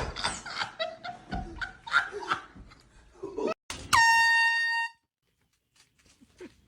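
Handheld air horn blasting one loud, steady note for about a second, about four seconds in, then cutting off abruptly.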